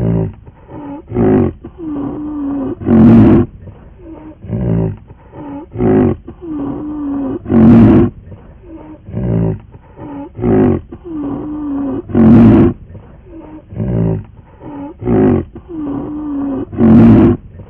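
A looped recording of an animal roaring. Four loud roars come about four and a half seconds apart, with shorter growls and a brief held groan between them, and the same pattern repeats each time.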